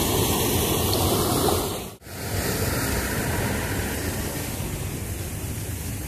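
Small waterfall with a strong flow: a steady rush of falling water. It cuts out briefly about two seconds in and comes back a little quieter.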